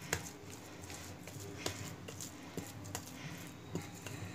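Hand kneading soft, sticky, oiled dough in a glass bowl: faint, irregular squishing with a few soft taps of hand and dough against the glass.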